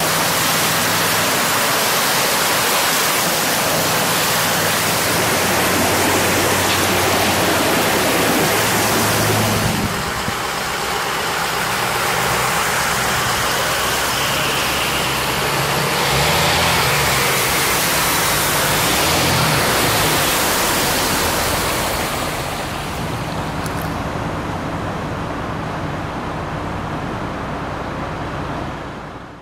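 Flooded river water rushing and churning for roughly the first ten seconds. Then, in several abrupt changes, trucks and cars drive through water covering the road, their tyres throwing up spray.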